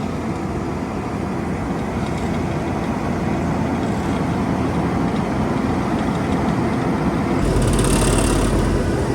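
Heavy road-works machinery engines running steadily. About seven seconds in, the sound grows louder, with a deeper rumble and a hiss on top.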